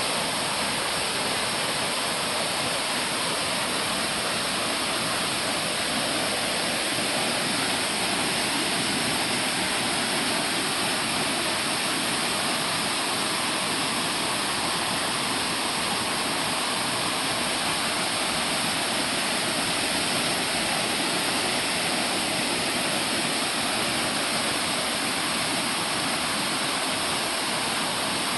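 Waterfall cascades rushing steadily, a constant even roar of falling water.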